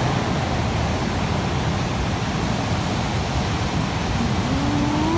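Big sea waves surging and breaking: a steady, dense rush of surf.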